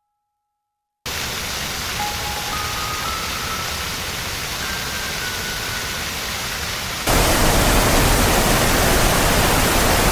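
Steady rushing of a waterfall, starting abruptly after about a second of silence and becoming louder and deeper about seven seconds in, with a few faint high notes sounding over it.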